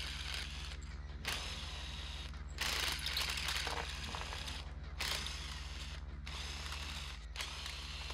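Ryobi cordless power tool on a socket extension, spinning loosened bolts out of a Toyota C52 transaxle case. It runs in about five short bursts of roughly a second each, one after another with brief pauses between.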